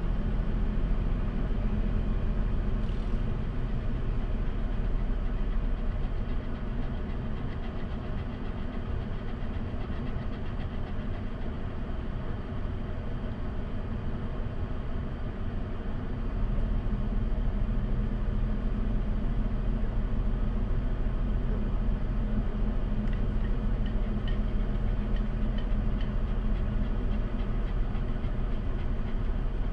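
Truck engine idling steadily, heard from inside the cab; the low hum grows a little louder about halfway through.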